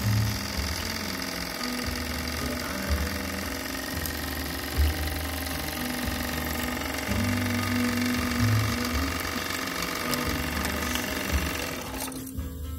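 Jensen Model 65 toy steam engine running fast on live steam, making a rapid mechanical clatter over a steady hiss. The hiss drops away near the end.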